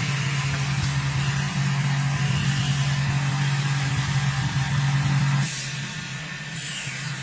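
A machine running with a steady low hum and a hiss above it, cut off abruptly about five and a half seconds in, leaving a quieter hiss.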